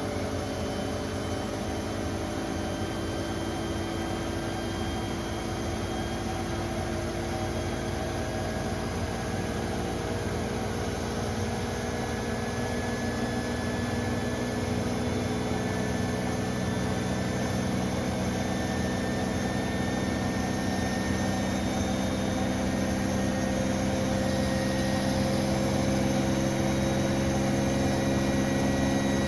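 Bosch Serie 4 WAN28281GB washing machine on its final spin, the drum speeding up with a steady running hum that slowly rises in pitch and loudness, and thin high squealing tones above it. The owner suspects the drive belt of the EcoSilence drive or the bearings; the door seal is clear of the drum.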